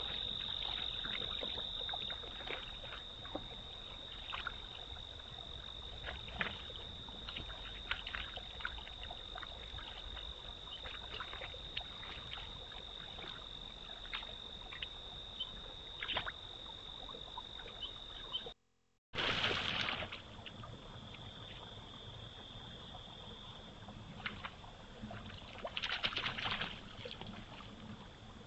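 Pond-edge outdoor sound picked up by a trail camera: a steady high-pitched drone with many short splashes and clicks of water over a low rumble. The sound cuts out briefly about two-thirds of the way through, then starts again with a short burst of noise.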